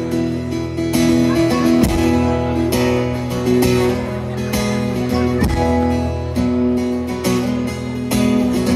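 Live acoustic guitar strumming the instrumental intro of a song, steady chords with no vocals yet.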